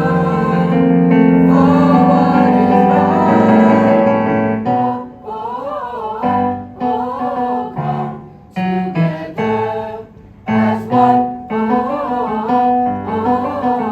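Group of voices singing a song with keyboard accompaniment. For the first few seconds the singing is full and sustained, then it breaks into shorter, wavering phrases with brief pauses between them.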